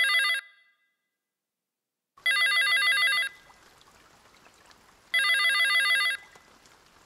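Telephone ringing unanswered: a trilling electronic ring in bursts about a second long, roughly three seconds apart. The tail of one ring falls at the start and two full rings follow, with faint hiss between the later ones.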